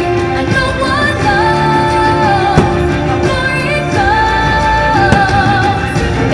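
Fireworks show soundtrack: orchestral music with a sung melody of long held notes, and sharp firework bangs about two and a half and five seconds in.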